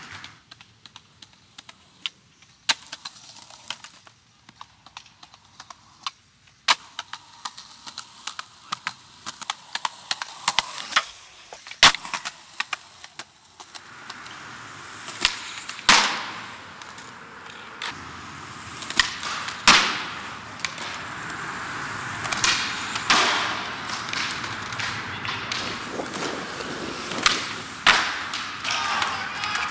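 Skateboards on concrete: wheels rolling, with repeated sharp clacks of boards popping and landing. The rolling noise gets louder about halfway through.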